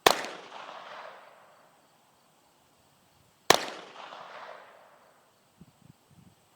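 Two shots from a Chiappa M9 .22 semi-automatic pistol, about three and a half seconds apart, each a sharp crack followed by an echoing tail. A few faint knocks near the end.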